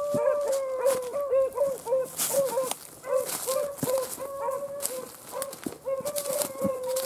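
Beagles baying on a rabbit's scent: a string of short yelping bays, two or three a second, with longer held bays at the start and again past the middle. A burst of crackling from brush about two seconds in.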